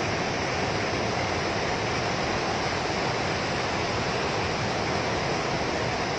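Muddy floodwater from a burst dam rushing across the ground in a steady, continuous torrent.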